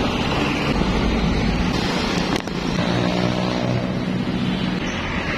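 Wind rushing over the microphone with road traffic noise while riding a bicycle along a road. A brief cut about two and a half seconds in, after which a steady low hum joins.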